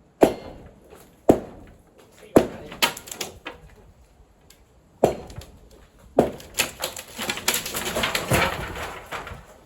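Old wooden pergola being knocked apart: heavy single blows about a second apart, then a quick run of cracking and clattering as timbers break and fall.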